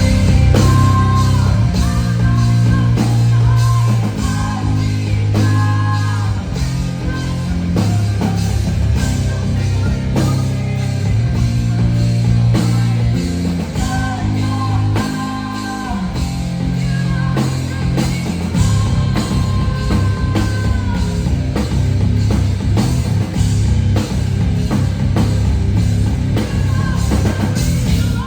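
Rock band playing live through a venue PA: heavy bass, a driving drum kit and guitar under sung vocals, with a steady beat. The song stops suddenly at the close.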